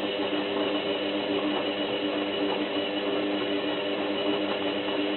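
Zanussi FLA1002W washing machine's drum motor running with a steady hum as it turns the drum during the wash, cutting off right at the end.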